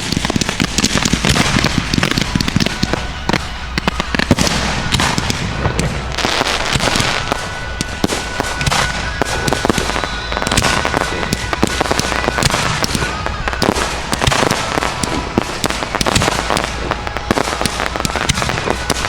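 Fireworks display going off at close range: a dense, unbroken run of bangs, crackles and reports from shells and cakes, several a second throughout.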